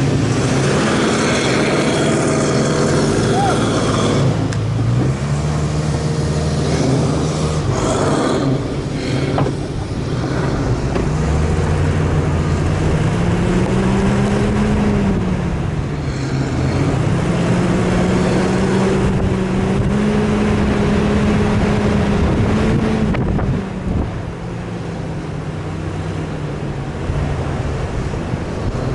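Off-road 4x4 engine working through desert sand dunes, its pitch rising and falling as the driver speeds up and eases off, over a steady rush of noise. The engine drops back and quietens near the end.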